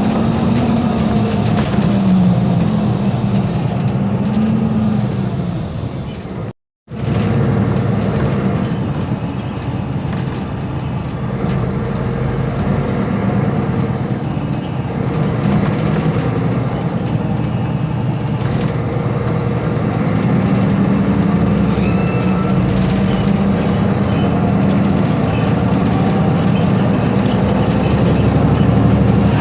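Mercedes-Benz Conecto G bus's OM457LA turbo-diesel straight-six and driveline running under way, the engine note rising and falling over the first few seconds, then holding steady. The sound cuts out completely for a moment about seven seconds in.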